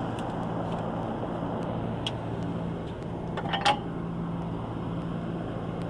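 Trane Voyager rooftop HVAC unit running: a steady rushing noise with a low hum, with a short knock about three and a half seconds in.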